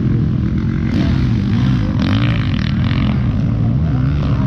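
Motocross dirt-bike engines revving and backing off around the track, their pitch rising and falling again and again, over a steady low rumble.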